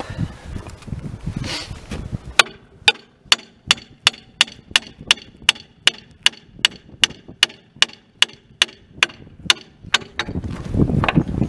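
Small hand hammer striking steel fittings at a steam locomotive's wheel and axle box. It makes a steady run of sharp, ringing metallic taps, about two and a half a second, that starts about two seconds in and stops near ten seconds, with low handling rumble around it.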